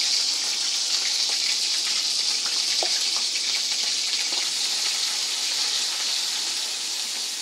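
Ginger-garlic paste and whole spices sizzling in hot oil in a kadhai: a steady hiss with faint crackles, easing slightly near the end. The paste is being fried to cook off its raw smell.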